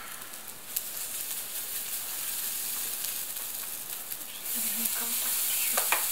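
Hot oil sizzling in a frying pan as semolina-and-kefir fritters (oladyi) fry. The sizzle grows louder about four and a half seconds in, as fresh spoonfuls of batter go into the oil, with a small click about a second in.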